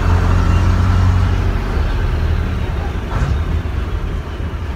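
Bristol RELL6L bus's rear-mounted Leyland six-cylinder diesel engine running under way, a steady low drone heard from inside the passenger saloon, easing a little past the middle.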